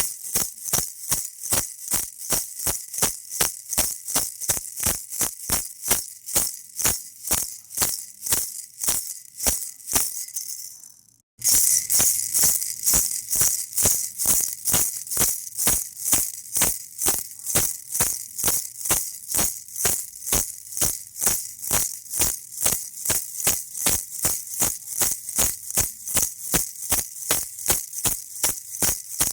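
Baby rattle shaken in a steady rhythm, about three shakes a second. It fades out and cuts to silence about eleven seconds in, then starts again louder.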